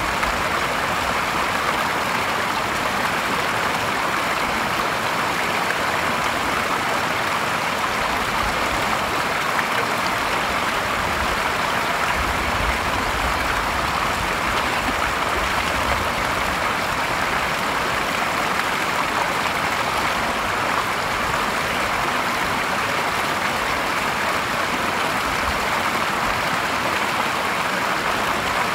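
Steady splashing rush of spring water pouring from a small spout over a log edge into a shallow stream pool.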